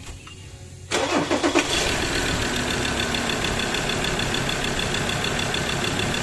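Mazda BT-50's 3.2-litre five-cylinder diesel engine being restarted: about a second in it cranks briefly, catches at once and settles into a steady idle. It starts straight away now that the fault, an oil-soaked camshaft position sensor connector, has been fixed.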